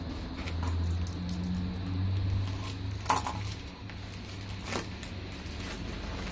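A small mailed package being opened by hand: crinkling and rustling of the envelope and wrapping, with a sharp crackle about three seconds in and another near five seconds.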